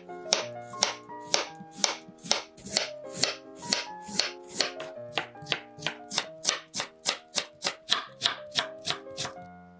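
Kitchen knife slicing a raw peeled potato on a wooden cutting board: a steady run of crisp cuts, about two to three a second, that stops shortly before the end. Soft background music plays underneath.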